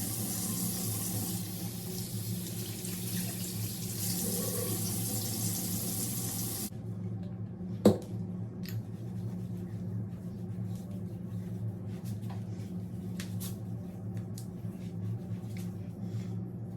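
Bathroom sink tap running, shut off abruptly about seven seconds in; a sharp click follows about a second later, then a few light clicks and knocks over a steady low hum.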